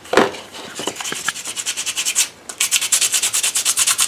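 Hand sanding a prop grenade with sandpaper to smooth down a raised edge: uneven rubbing strokes at first, then a brief pause about halfway in and fast, even back-and-forth strokes, about eight a second.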